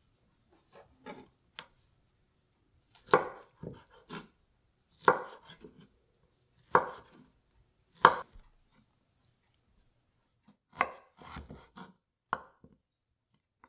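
Kitchen knife cutting bamboo shoots on a wooden cutting board. A few faint taps come first, then about six sharp cuts a second or two apart, each followed by a few lighter cuts.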